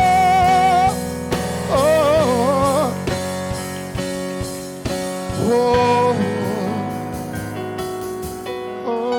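Gospel worship music: a singer's wordless held notes and short bending runs over sustained keyboard chords and drum hits. One held note opens it, a run comes about two seconds in, and another held note follows around six seconds.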